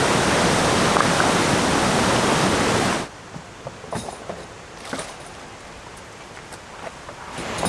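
Whitewater rapids rushing loudly and steadily. About three seconds in it cuts off abruptly to a much quieter background with scattered faint knocks and small splashes.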